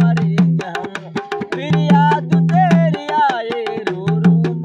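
Dholak, a rope-tuned two-headed barrel drum, played by hand in a quick folk rhythm, its bass head ringing at a steady low pitch under the strokes, with a gliding melody line over it.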